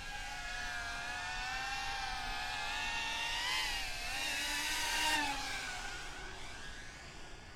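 Protek35 cinewhoop FPV drone flying on its stock three-blade props: a buzzing whine whose pitch wavers with the throttle. It grows louder to a peak about five seconds in as the drone passes close, then fades away.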